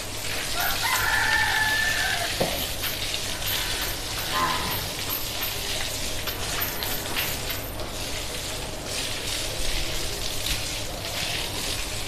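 Water jetting from a garden hose onto buffaloes' hides and the wet floor, a steady hiss. Over it a bird calls, one long held call about a second in and a short one at about four seconds.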